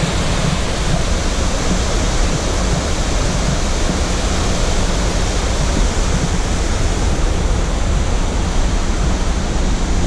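Steady rushing of Upper Mesa Falls, a large waterfall on the Henrys Fork about 35 m high and 60 m wide, heard close up from an overlook beside the falling water: a loud, even wash of water noise with a deep low end.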